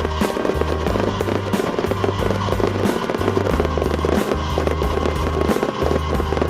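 Fireworks crackling and popping densely, with a few sharper bangs, over music with a steady, pulsing bass line.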